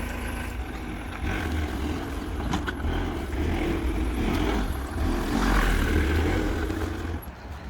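A motor running with a low rumble that swells and fades, dropping away about seven seconds in.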